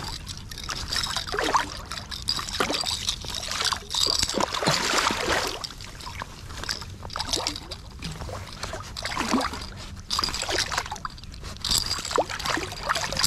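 Water splashing and sloshing in irregular surges as a hooked striped bass thrashes at the surface and gloved hands work in the water to free it.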